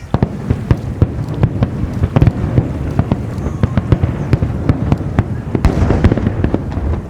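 Fireworks display: a rapid barrage of shell bursts, many sharp bangs a second, beginning suddenly and keeping up throughout.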